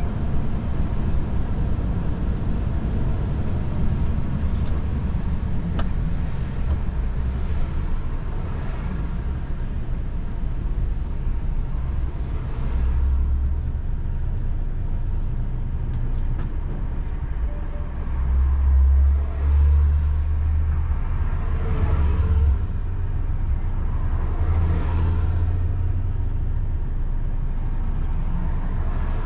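Car driving on a wet road in the rain: a steady low rumble of engine and tyre noise, with a few brief hissing swells spread through.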